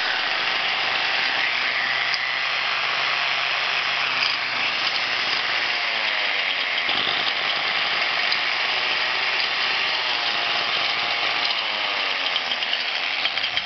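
DWT angle grinder's brushed electric motor running steadily at no load, with the newly fitted carbon brushes bedding in against the armature's commutator. A faint whine wavers slightly in pitch, and near the end the sound turns uneven.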